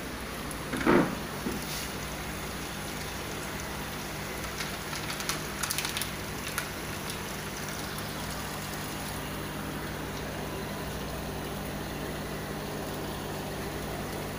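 Steady hum and running-water noise of aquarium pumps and circulating water in the quarantine tanks. A loud thump comes about a second in, and a brief patter of clicks and rattles comes about halfway through.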